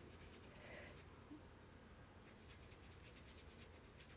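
Faint, quick scratchy strokes of a bristle paintbrush dabbing acrylic paint onto canvas, a short run of strokes in the first second, then a longer run from about halfway through.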